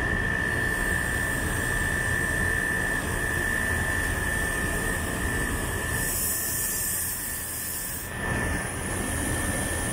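Split-type aircon outdoor unit running steadily, a constant whine over its hum. About six seconds in a loud high hiss starts and cuts off sharply two seconds later.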